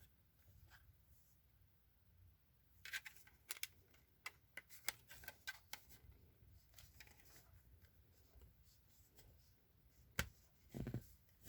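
Faint scattered clicks and clatters of a plastic Mastercraft smoke alarm casing being handled and pried open. There is a cluster of them about three to six seconds in, a few soft ticks after, and a couple more clicks near the end.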